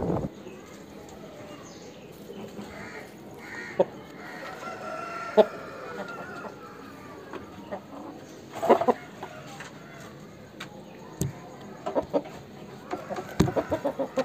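Aseel chickens clucking, with a rooster crowing once around the middle. A quick run of short, sharp clucks comes near the end.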